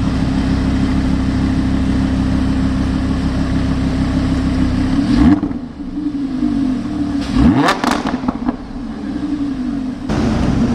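Supercar engine and exhaust held at a steady high rev for about five seconds, then dropping off, followed near the eighth second by a quick rev that rises sharply and falls away.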